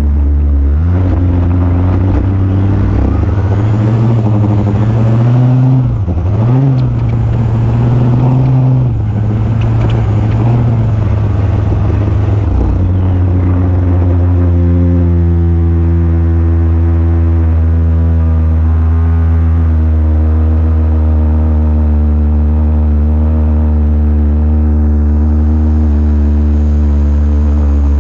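Small two-stroke string-trimmer engine on an RC truck, revving up and down unevenly for about the first half, then running at a steady speed for the rest.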